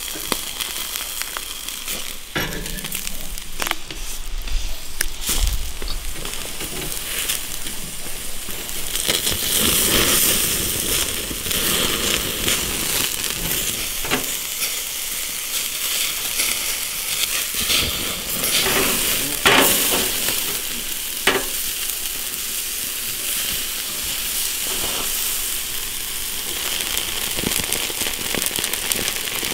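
Lamb skewers sizzling on a grill over charcoal, a steady hiss with sharp crackles and pops of dripping fat now and then.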